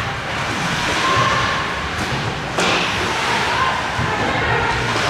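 Ice hockey game play heard in a rink: a steady din with players' voices calling out, and one loud sharp crack with a short ring about two and a half seconds in, an impact from the play.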